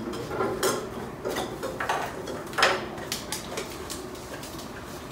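Small plastic draw balls clattering in a clear bowl as they are handled: a string of sharp clicks, the loudest about two and a half seconds in.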